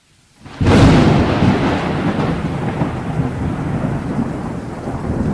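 Thunderclap sound effect: a sudden loud crack about half a second in, followed by a long rolling rumble.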